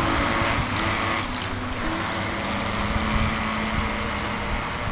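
Small 9.6-volt electric RC toy boat running fast across the water, with a faint motor whine and a steady hiss of spray from the hull. It grows a little fainter as the boat moves away.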